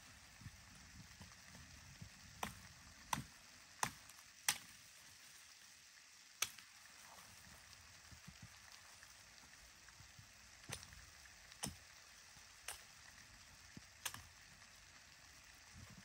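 Hatchet chopping snow-covered branches of a fallen tree: about ten sharp strikes at uneven intervals, several in quick succession a few seconds in, then spaced further apart.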